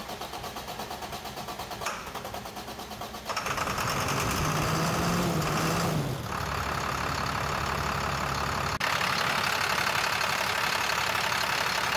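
International DT466 inline-six diesel starting: it cranks with an even pulsing for about three seconds, catches, and settles into a steady idle. It runs with a new IPR valve fitted, the usual cure for stalling and no-start.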